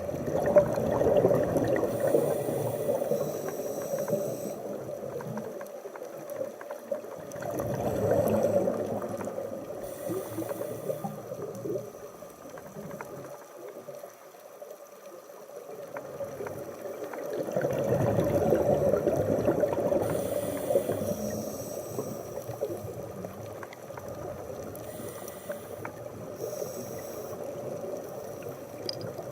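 Scuba diver breathing underwater through a regulator: exhaled bubbles gurgle out in slow surges every several seconds, with the brief hiss of an inhale through the regulator between them.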